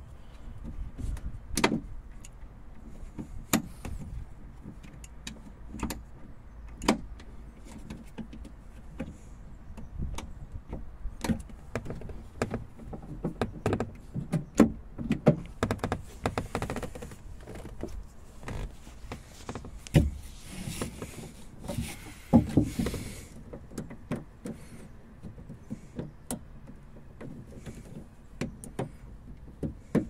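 Jaguar X-Type door latch, handle and linkage rods worked by hand with the door card off, giving repeated irregular clicks and clacks as the latch is tried for release. A few longer rustling or whirring stretches come in about halfway through.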